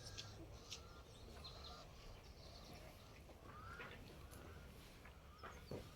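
Faint bird calls, a handful of short arched chirps spread through, with a few scattered light clicks.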